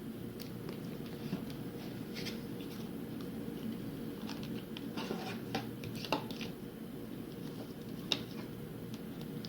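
Trading cards and their plastic pack wrappers being handled: a string of light clicks and rustles, busiest a little past the middle, over a steady background hum.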